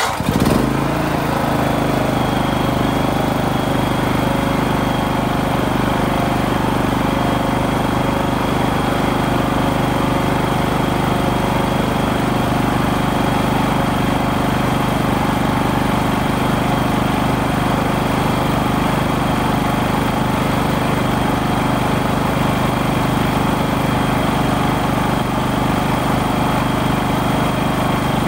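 Champion 9000-watt tri-fuel inverter generator's engine, just started and settling within the first second, then running steadily on freshly changed oil. A steady high-pitched whine runs alongside.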